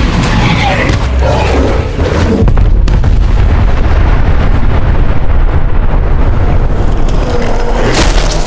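Loud, continuous deep rumbling boom, with a sharp crack about three seconds in.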